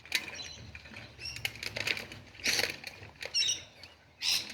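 Hex tool scraping and clicking on the bar nut of a Honda pole chainsaw as the nut is worked loose: a string of short, irregular rasps and clicks.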